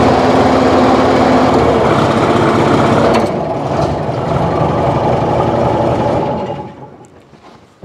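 Old wheel loader's engine running under load while its hydraulics swing the wings of a V-plow through a newly fitted snow-plow valve, with a steady pitched whine; the sound drops away sharply about six and a half seconds in.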